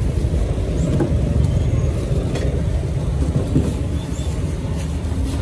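Steady rumble of road traffic, motorbikes and cars going by, with a few light clicks over it.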